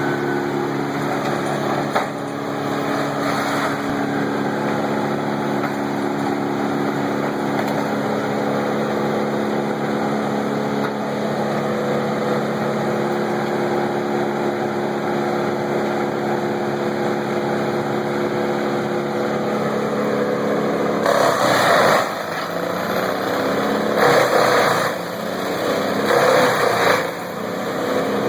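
Wood chipper's engine running at a steady pitch. In the last several seconds three louder, noisier bursts break in as wood is fed through and chipped, and the engine note wavers under the load.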